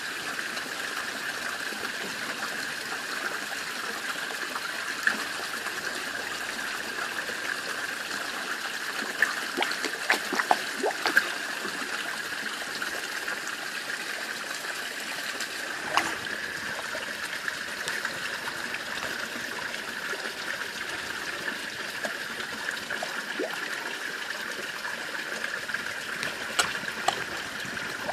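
Steady trickle of running water in a garden fish pond, with scattered small splashes and slurps as fish take floating food at the surface, a cluster of them about a third of the way in, one just past halfway and a few near the end.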